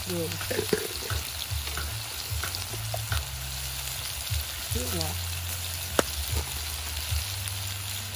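Pieces of snakehead fish sizzling in hot oil in a clay pot: a steady frying hiss with occasional sharp crackles, one standing out about six seconds in.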